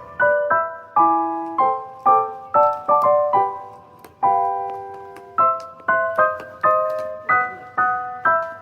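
Background music: a piano (or electric piano) playing short chords and notes in an even rhythm, each note struck and fading.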